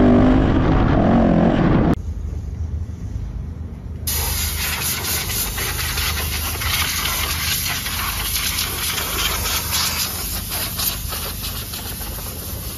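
A rally motorcycle's engine running while riding on sand, cut off suddenly about two seconds in. After that comes a steady hiss with fine crackling.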